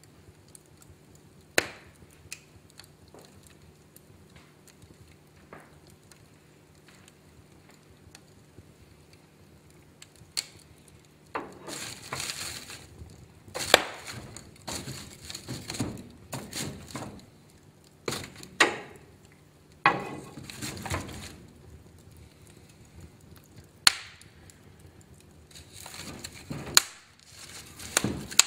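Wood fire in a fireplace crackling, with a few scattered sharp pops at first and busier bursts of crackling and loud pops from about the middle on.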